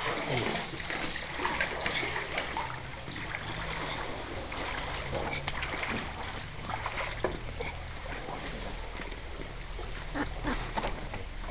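Floodwater splashing irregularly, with many short splashes, as people or a boat push through it.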